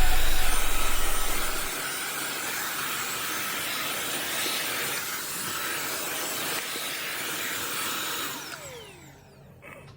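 Midea SC861 corded 2-in-1 vacuum cleaner running with a steady rushing motor noise. A little over 8 seconds in it is switched off, and its whine falls in pitch as the motor spins down.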